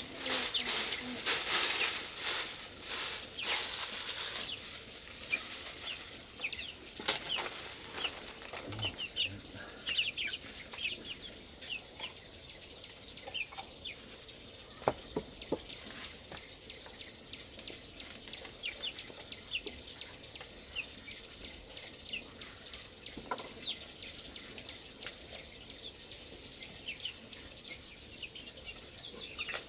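Insects droning steadily on one high note, with many short high chirps scattered through. A burst of rustling or flapping noise fills the first few seconds.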